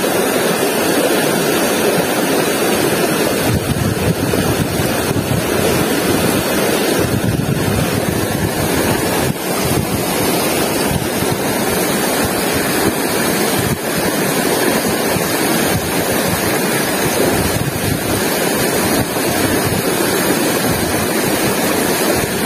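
Steady rush of a fast-flowing shallow river running over rocks, with wind buffeting the microphone.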